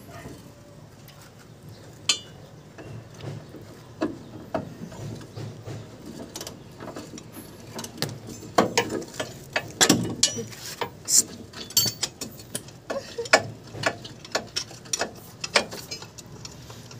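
Hand ratchet wrench clicking in short, irregular runs as bolts are loosened under the van, mixed with sharp metal clinks; the clicking comes thicker in the second half.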